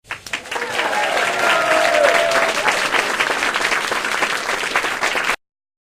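Crowd applauding and cheering, swelling over the first second and cutting off abruptly near the end.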